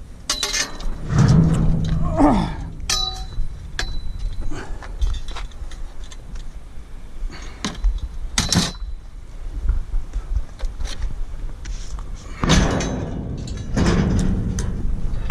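Scrap and junk being rummaged through in a dumpster: scattered clanks and knocks of metal pieces, some clinking with a short ring, and scraping, rustling shifts of debris over a steady low rumble.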